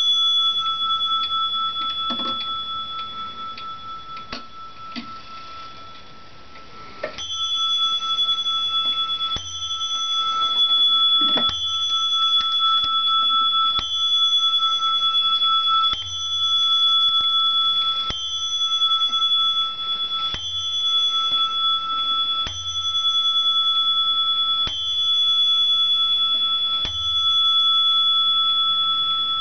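Dutch Friese tailed wall clock with faint ticks, then from about seven seconds in its bell struck ten times, a stroke about every two seconds, each stroke ringing on into the next.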